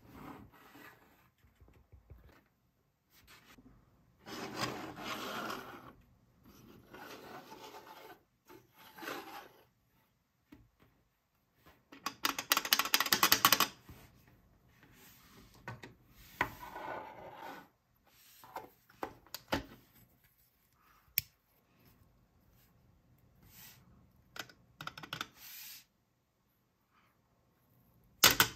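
Plastic LEGO pieces and minifigures handled and set down on a tabletop: rubbing and light clicking in several separate bursts, the loudest a dense run of rapid clicks about halfway through.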